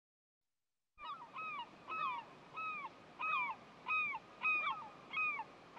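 A bird calling over and over, starting about a second in. Each call is a short note that rises and then falls, at about two calls a second.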